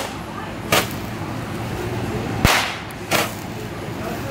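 Handheld Roman candle firing three sharp pops at uneven spacing, each launching a shot into the air. The middle pop is the loudest.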